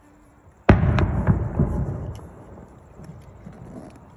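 Fireworks: an aerial shell bursts with a sudden loud bang less than a second in, then two smaller sharp reports follow, and a rumble fades out over the next couple of seconds.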